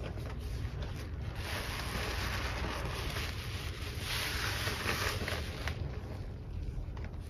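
A soapy sponge squeezed and kneaded by gloved hands in a basin of thick suds: wet squelching and fizzing of the foam, loudest from about a second and a half in until nearly six seconds, over a steady low rumble.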